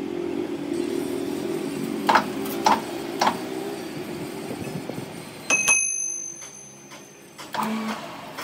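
Small hammer tapping a large steel spur gear clamped in a lathe chuck, done to true it against a dial indicator. There are three light knocks, then two harder strikes about halfway through that leave a high metallic ring, then a few more knocks near the end, all over a steady low hum.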